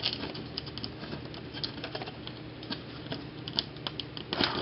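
LEGO bricks clicking and tapping as small plastic slant pieces are fumbled and pressed onto the edge of a plate, in irregular light clicks with a denser cluster near the end.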